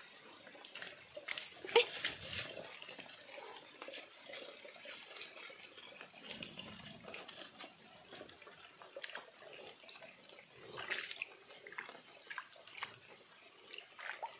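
Irregular footsteps and scuffs on a wet, muddy dirt trail, with scattered short knocks and scrapes.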